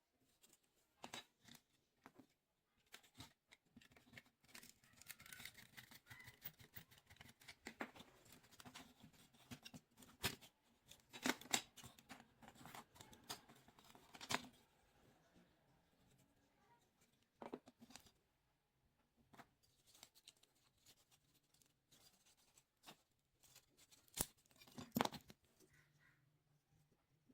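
Faint, scattered clicks, taps and scratchy scraping from small hand tools working on a toy model bus, with the sharpest clicks about eleven seconds in and again near the end.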